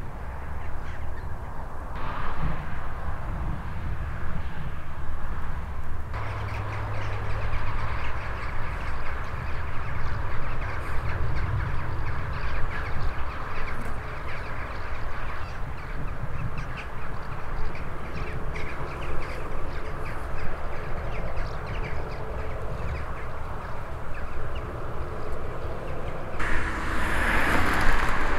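Wind rumbling on the microphone, with birds calling over it; a louder rushing sound swells briefly near the end.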